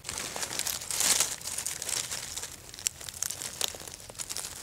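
Dry leaf litter and twigs rustling and crackling irregularly as a hand pushes through forest-floor undergrowth.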